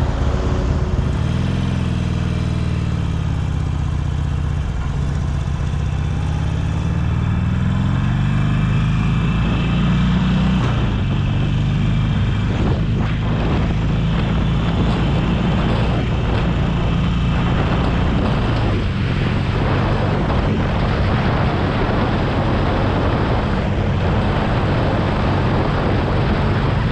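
Harley-Davidson Sportster Iron 883's air-cooled V-twin running while riding, with wind and road noise. Its pitch drops over the first few seconds as the bike slows, climbs around ten seconds in as it speeds up, then holds steady.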